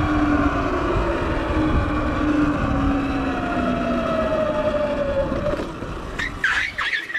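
Electric motorbike's motor whining under wind rumble, its pitch slowly falling as the bike eases off. A few short high squeaks come near the end.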